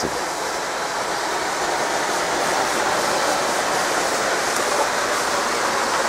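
Waterfall rushing steadily, an even, unbroken hiss of falling water.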